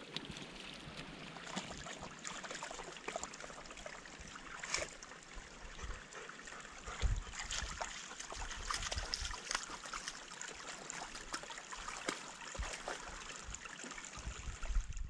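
Small shallow stream trickling over rocks and a fallen log, a steady wash of running water with a few faint clicks.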